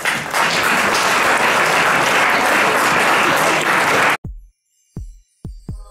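Audience applauding steadily, which cuts off suddenly about four seconds in. Then come a few deep, short electronic bass thumps as music starts.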